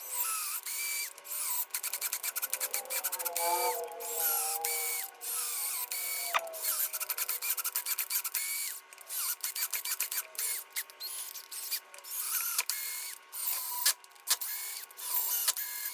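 Hand tap being turned through threaded bolt holes in a Kohler K301 cast-iron engine block to clean out the threads: scraping metal with repeated short squeaks and many small clicks.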